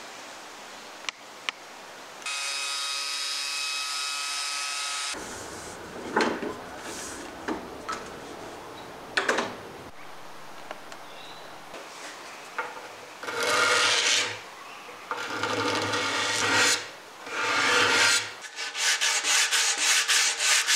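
Sandpaper rubbed by hand along the edge of a wooden tabletop, first in long strokes and then in quick back-and-forth strokes near the end. A few seconds in, a steady pitched hum sounds for about three seconds and then stops abruptly.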